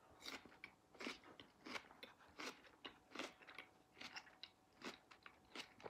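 Faint, close chewing of a mouthful of soft melon: small wet, crunching smacks about twice a second.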